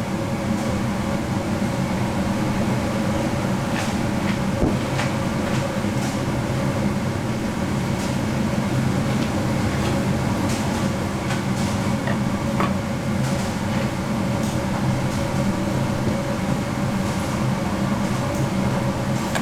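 Steady machinery hum of a candy-factory workshop, an even drone with a few faint light knocks scattered through it.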